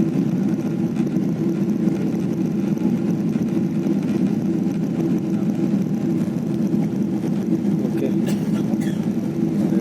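Steady drone of an airliner's jet engines and airflow heard inside the passenger cabin during the climb after takeoff.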